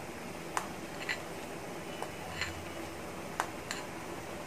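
A steel spoon clicking lightly against a glass bowl, about six small ticks spread over a few seconds, as thick green chutney is scooped out, over a faint steady background noise.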